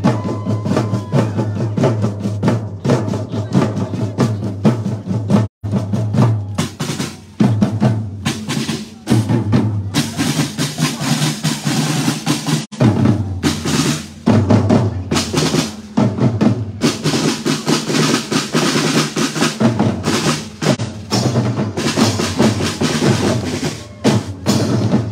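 Marching drum line playing a cadence: rapid snare drum strokes and rolls with bass drums and cymbals. The sound cuts out for a moment about five and a half seconds in.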